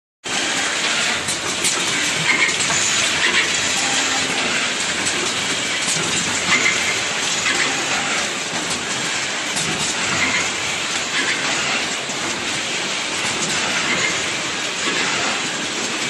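WL-S800 wire both-ends connector housing assembly machine running: a steady mechanical clatter and hiss, with many sharp clicks from its working heads.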